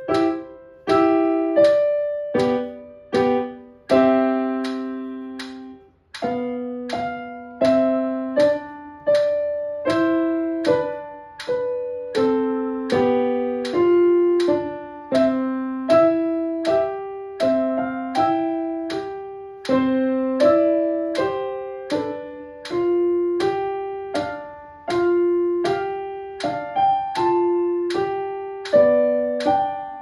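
A simple waltz played on a digital piano at a slow, even practice tempo of 80 beats a minute, a note or chord struck about every three-quarters of a second and each fading before the next. The playing breaks off briefly about six seconds in, then carries on.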